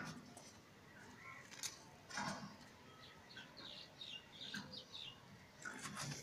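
Faint scratchy rustling as a rat roots through soil and dry plant litter, in a few short bursts. Small birds chirp in the background, most often in the middle.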